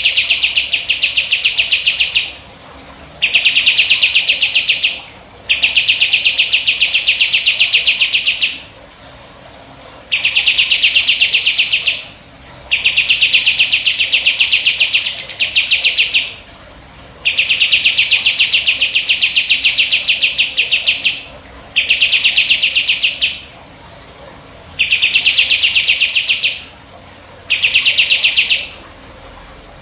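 A burung jenggot songbird singing its 'tembakan': a rapid, high, even trill delivered in repeated bouts of one to three seconds each, with short pauses of about a second between them.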